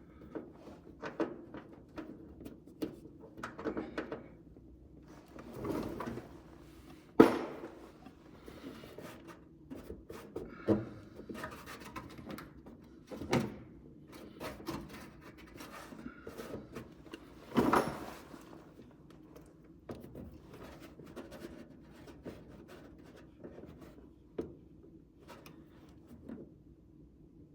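Scattered knocks, clicks and clatters of tools and parts being handled during hands-on bodywork, with a sharper knock about seven seconds in and another heavier clatter near eighteen seconds.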